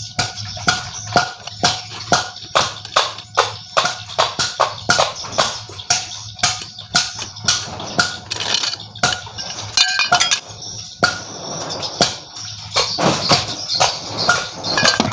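Repeated hammer blows on the metal of a Yamaha 100 motorcycle engine as it is smashed apart, about two sharp metallic strikes a second, with music underneath.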